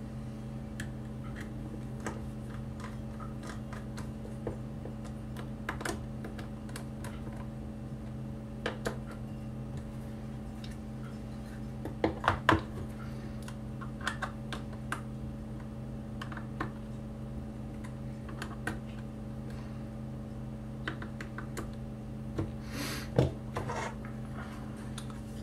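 A precision screwdriver and small screws clicking and scraping against a metal laptop hard-drive bracket while the screws are driven in. A louder cluster of clicks comes about halfway through, and there is a short scrape near the end as the drive and bracket are handled, all over a steady low hum.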